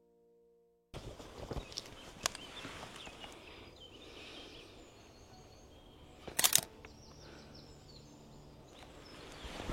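Piano music cuts off about a second in, giving way to steady outdoor background noise with faint bird chirps. A few sharp knocks come through, the loudest a quick double knock about six and a half seconds in.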